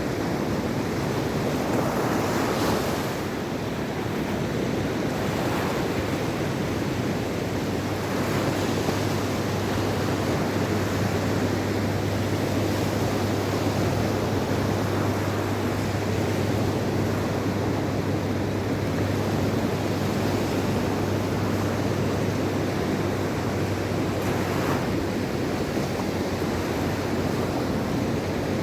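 Mediterranean Sea surf washing continuously on the shore, with a few louder wave breaks swelling up, about 2, 5, 8 and 25 seconds in. A steady low hum runs underneath through most of it.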